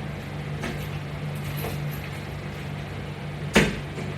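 Workout equipment being set up: a few faint clicks and handling noises, then one sharp knock about three and a half seconds in, over a steady low hum.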